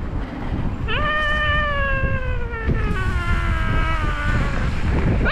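A young child's long, drawn-out vocal call: one high note that slowly slides down in pitch for about three and a half seconds. Under it runs a low rumble of wind and riding noise.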